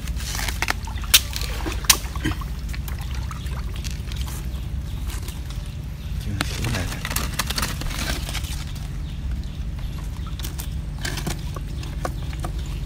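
A wooden pole knocking and scraping in a hollow mangrove tree, with water sloshing over a steady low rumble. It is used to poke rats out of their nest in the hollow.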